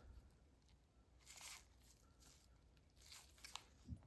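Near silence, with a few faint short scrapes and light clicks of a stainless steel orthodontic wire and pliers being handled against a dental model.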